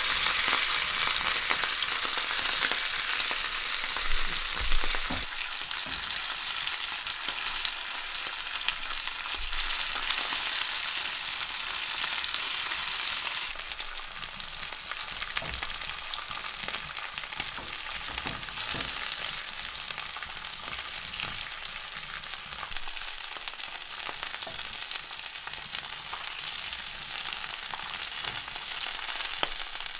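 Raw rib chops sizzling and crackling in a hot grill pan, a steady frying hiss, with a couple of light knocks about four seconds in.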